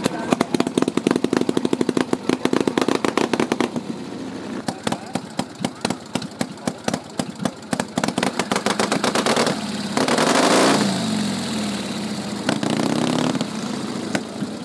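Harley-Davidson 8-valve board-track racer's V-twin engine running through short open exhaust stubs. It fires as a rapid string of loud pops, then settles to an uneven, lumpy idle of separate bangs, with a brief rev about two-thirds of the way through.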